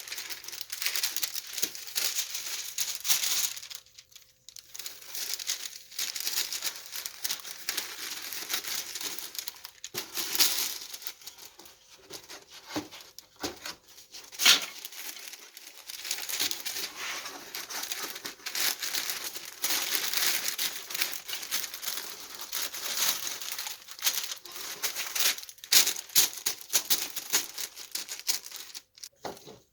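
Wax paper crinkling and rustling as it is handled and pressed into place, in long stretches with a short pause about four seconds in.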